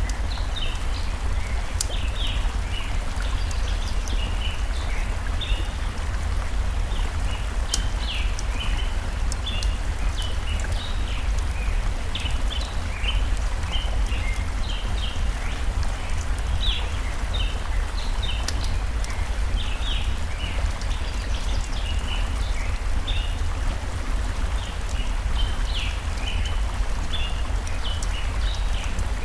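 Steady rushing of a flowing forest stream, with many small birds chirping in quick short notes throughout and a few sharp crackles and pops from a campfire.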